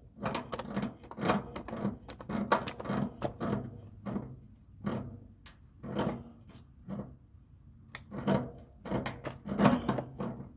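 Irregular clicks, knocks and rattles of hand tools and refrigerant gauge hose fittings being handled and worked at a mini-split condenser's service valves.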